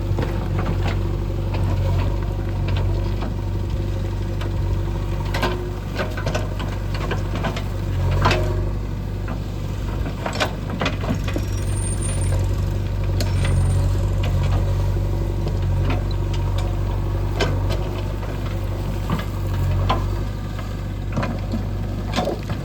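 A heavy diesel engine running steadily at low speed, with sharp knocks and clanks now and then.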